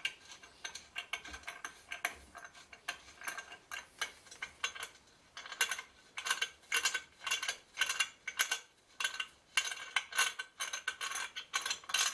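Hand tap cutting threads in aluminium, turned by a tap wrench. It gives a rapid series of short metallic scraping clicks, about two to three a second, closer together in the second half, as the tap bites in tightly.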